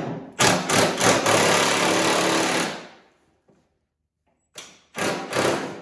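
Milwaukee M12 3/8-inch stubby impact wrench hammering: a few quick bursts, then a steady run of about a second and a half, and two more short bursts near the end. It is working loose a corroded bolt on a snowblower's skid shoe.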